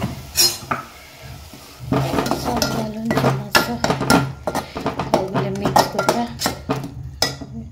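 Metal spoon stirring thick masala paste in an aluminium pot, scraping and knocking against the pot's sides and bottom in a run of clinks. It starts with a few knocks, then about two seconds in turns into continuous stirring that lasts until shortly before the end.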